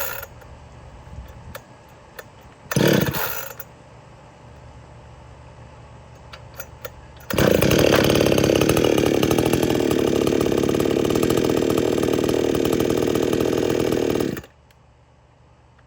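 Gas chainsaw being pull-started: a short burst from a pull on the starter cord about three seconds in, then the engine runs steadily for about seven seconds and cuts off suddenly.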